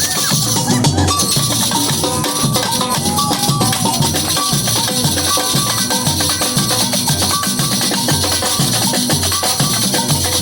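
Samba batería playing a steady rhythm: deep bass drum beats repeating under a continuous rattle of shakers and other percussion.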